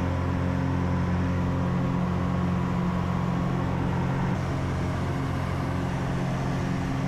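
Steady low engine drone of a vehicle in motion, an even hum with no change in pitch.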